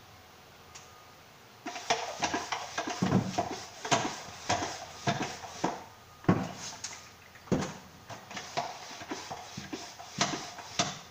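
Hand pump sprayer spraying rust converter onto a bare steel floor in a run of short, uneven spurts, starting about two seconds in.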